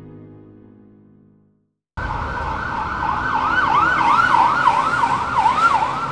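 Soft keyboard music fades out, and after a brief silence an emergency-vehicle siren starts abruptly over traffic noise, wailing rapidly up and down about three times a second.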